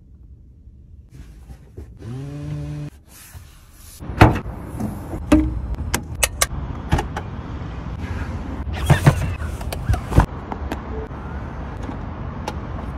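A Tesla Model X's small electric motor whirs briefly, rising in pitch, followed by a string of sharp plastic clicks and knocks as the car's fittings, such as a fluid cap in the front trunk, are handled.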